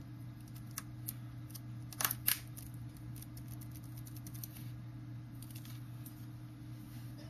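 Small plastic clicks of a keycap being pressed down and snapped onto its k18 scissor hinge on an Acer Aspire One D150/D250 laptop keyboard. The two sharpest snaps come about two seconds in, with lighter ticks after, over a steady low hum.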